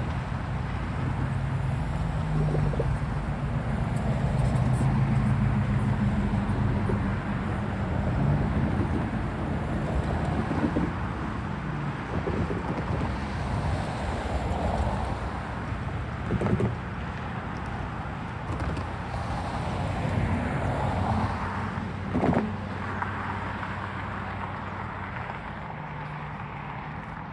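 Union Pacific intermodal stack train rolling past: a steady rumble of wheels on rail under a low hum that is strongest about four to seven seconds in. A couple of sharp clunks come later on, and the sound slowly fades near the end.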